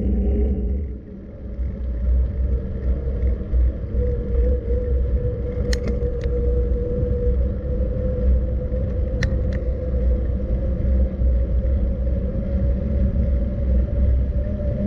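Steady low rumble of wind and rolling noise on the move, with a faint steady hum that creeps up in pitch toward the end. Two pairs of sharp clicks about six and nine seconds in.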